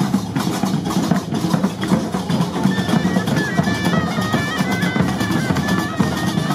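Gnawa street procession music: many qraqeb (iron castanets) clattering in a fast rhythm over large tbel drums. From about three seconds in, a wind instrument plays a high, stepping melody over the percussion.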